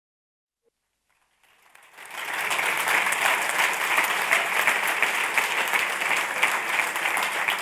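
Near silence for about a second and a half, then an audience's applause fades in and carries on as steady clapping.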